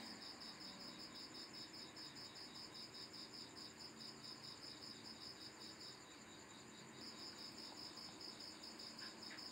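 Faint cricket chirping in the background, a high, quick and even pulsing that breaks off briefly about six seconds in and then starts again.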